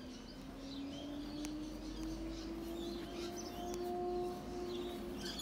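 Small birds chirping in short, scattered calls, over a steady hum that slowly rises in pitch.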